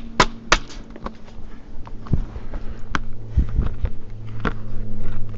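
Sharp clanks and knocks of scrap metal being handled: three quick ones at the start, then scattered single knocks, over a steady low hum.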